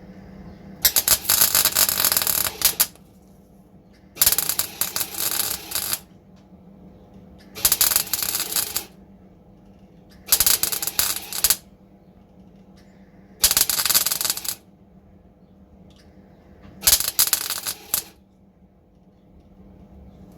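Welding in six short bursts, each one to two seconds long, with pauses of about a second and a half between them: short runs laid one after another on sheet-steel body repair.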